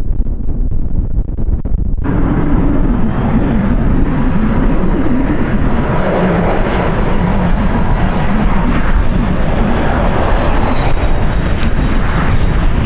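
Jet aircraft engine noise that starts abruptly about two seconds in, with a faint high whine slowly falling in pitch as the plane passes. Heavy wind buffeting on the microphone runs underneath throughout.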